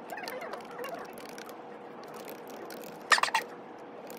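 Typing on a low-profile computer keyboard: a quick, uneven run of key clicks over a faint steady hum. About three seconds in, a brief, louder pitched squeak stands out.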